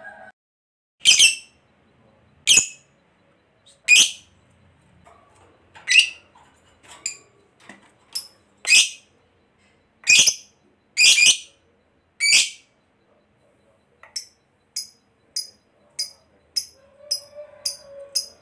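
Fischer's lovebird giving loud, shrill single calls spaced a second or two apart, then, about two-thirds of the way through, a quicker run of short high chirps at about two a second.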